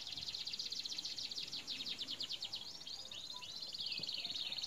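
A bird singing a long, fast, high trill, with a few short falling whistled notes past the middle.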